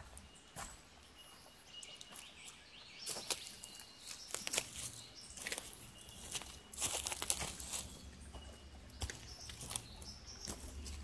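Footsteps crunching irregularly on a forest track, busiest in the middle. Behind them, birds give small high chirps and a thin high whistle that is held and repeated.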